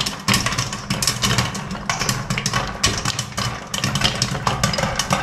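Sorghum (jowar) kernels popping in hot oil in a pan covered with a glass lid: a dense, irregular crackle of many quick pops, over a steady low rumble.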